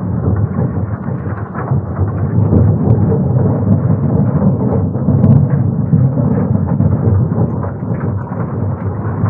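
Scallop dredge dragged across a gravel and stone seabed, heard underwater: a heavy, continuous low rumble with a dense scatter of crackles and rattles as the teeth and chain bag scrape over the bottom.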